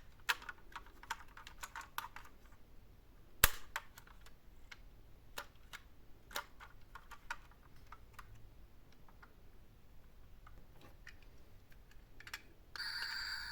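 Irregular sharp clicks and knocks of hard plastic toy vehicles being handled, with one louder knock about three and a half seconds in. Near the end a toy's electronic sound switches on as a steady, buzzy tone.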